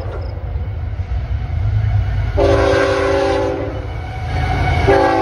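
CSX freight locomotive leading an intermodal train sounds its multi-chime air horn as it approaches: one blast of about a second, then a second blast beginning near the end, over a low rumble of the train.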